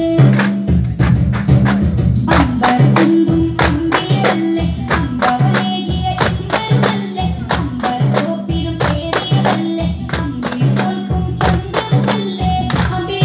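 Daff (frame drum) strikes in a steady beat over music with singing.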